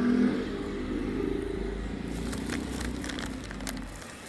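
A passing motor vehicle's engine running, fading away over the first two seconds, followed by a spell of sharp crackling clicks.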